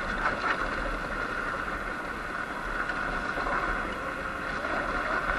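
Sur-Ron X Light Bee electric dirt bike riding on a loose dirt road: a steady whine from the electric motor and chain drive over tyre and wind noise.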